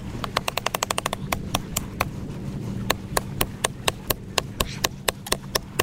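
A blade chopping wood with a rapid series of sharp strikes. There is a very fast flurry of about ten a second near the start, then steadier strikes about four or five a second.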